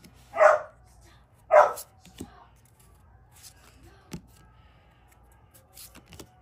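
A dog barks twice, about a second apart, near the start, with faint clicks and rustles around it.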